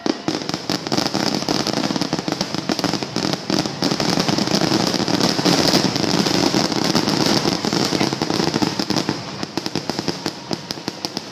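Fireworks finale barrage: a rapid, unbroken string of bangs and crackles from aerial shells, thinning out over the last couple of seconds.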